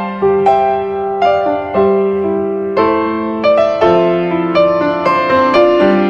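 Background instrumental music: a gentle melody of notes that start sharply and ring out as they fade, two or three new notes a second over lower held tones.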